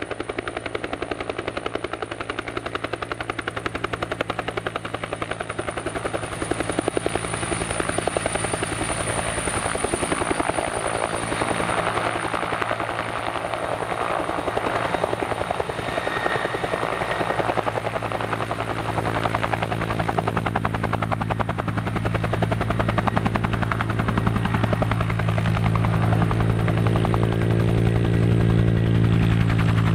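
Bell 212 helicopter hovering low and settling to land: the rapid, even beat of its two-bladed main rotor over the steady hum of its twin turbine engines, growing louder over the last several seconds.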